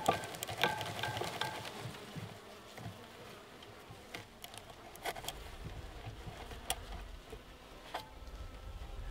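Honey bees buzzing from an opened package, with scattered sharp taps and scrapes as the tin feeder can is worked loose from the wooden package box. The buzzing is strongest in the first couple of seconds.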